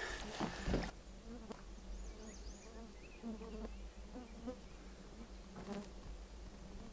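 A flying insect buzzing steadily, with a few knocks in the first second.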